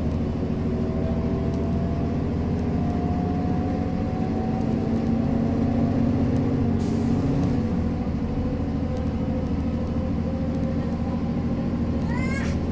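Mercedes-Benz O405 city bus's six-cylinder diesel engine running as the bus pulls away, its pitch slowly rising as it accelerates. A short burst of air hiss comes about seven seconds in, and short high chirps sound near the end.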